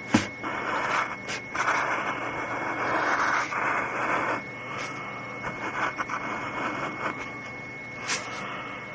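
Drawing strokes scratching on paper in runs of a second or so, with a sharp click just after the start and another near the end. A faint steady high whine runs underneath.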